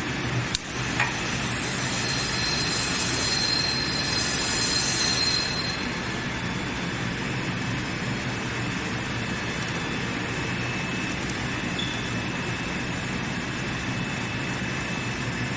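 Steady machinery noise of a factory workshop, with a sharp snip about half a second in as pliers cut the welding wire, and a high whine between about two and six seconds in.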